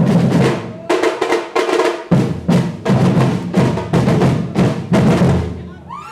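Brazilian batucada percussion ensemble playing a driving rhythm, with heavy bass drum strokes about twice a second over snares. There is a short break about two seconds in. Near the end the last strokes ring out as the piece finishes.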